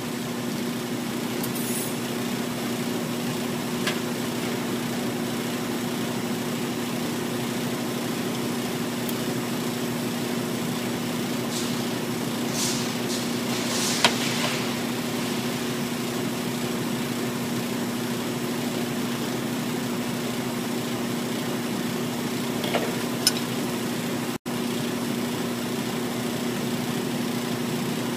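Steady electrical machine hum with a fan-like hiss underneath, from the TIG welder left running between welds, with a few faint short hisses. The sound breaks off for an instant about 24 seconds in.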